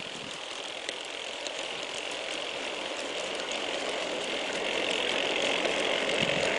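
G-scale model train running on outdoor track, its five Aristo-Craft ALCO FA1/FB1 locomotives and wheels giving a steady mechanical whir with faint ticks that grows gradually louder as the train approaches down a grade.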